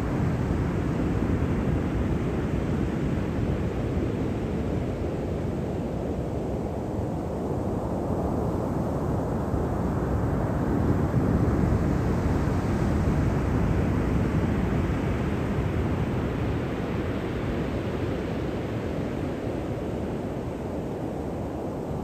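Pacific Ocean surf breaking on a sandy beach: a steady low rush of waves. About ten to twelve seconds in it swells into a louder, brighter crash as a large wave breaks, then eases back.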